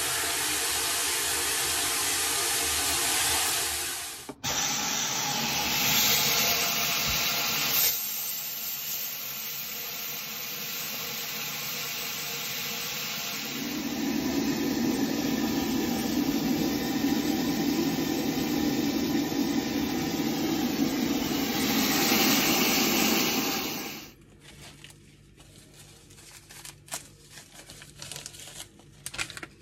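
Water running from a hose into a stainless electric brewing kettle as it fills, a steady rushing noise that changes character as the level rises. It gives way, about six seconds before the end, to quiet with a few small clicks.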